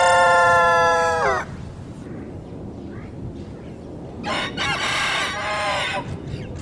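Rooster crowing: a loud crow ends on a long held note that fades out about a second and a half in, then a second, quieter crow follows about four seconds in.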